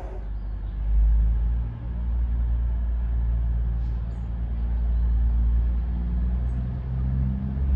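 A train's engine running with a steady low rumble, its pitch stepping up slightly near the end.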